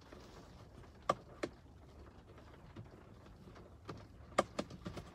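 Faint steady background inside a car, with a few short sharp clicks: two about a second in and a quick run of four or five near the end.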